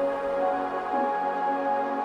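Background music: calm ambient electronic music with slow, held synthesizer tones.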